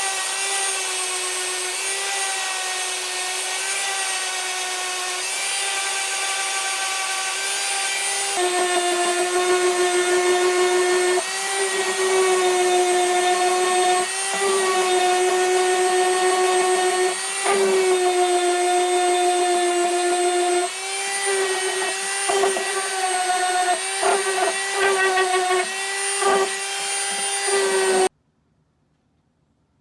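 A power tool's motor running with a steady whine, stepping slightly lower in pitch and getting louder about eight seconds in. The pitch then dips briefly several times, and the sound cuts off suddenly a little before the end.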